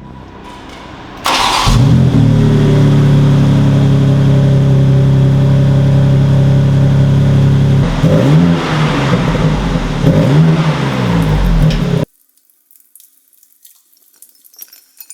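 BMW X3 M Competition's 3.0-litre inline-six starting with a loud flare about a second in, then running at a steady high idle. It is revved twice in quick blips, after which the sound cuts off suddenly.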